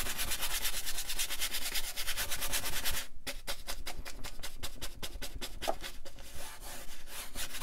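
A paintbrush scrubbing oil paint onto a stretched canvas in quick back-and-forth strokes, several a second. There is a brief break about three seconds in before the scrubbing resumes.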